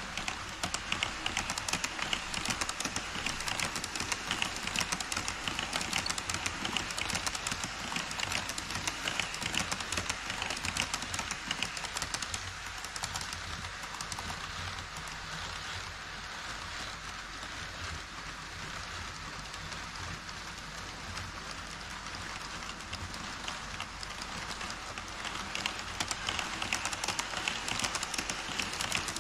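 HO-scale model trains running on sectional track: a dense, rapid clicking of wheels over the rail joints. The rattle eases off in the middle and grows louder again near the end as an E5 shinkansen model crosses the truss bridge.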